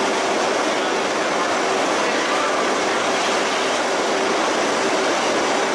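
Steady din of crab-processing plant machinery: an even, loud rushing noise with a faint constant hum underneath.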